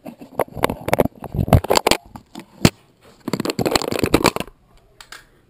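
Handling noise on a GoPro Hero 2 in its plastic housing: a quick run of clicks, knocks and rubbing as the camera is gripped and swung about, with a dense stretch of scraping about three seconds in and a couple of clicks near the end.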